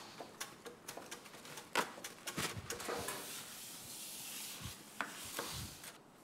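Kitchen utensils being handled: soft scraping and rubbing with a few scattered light knocks, as during food preparation.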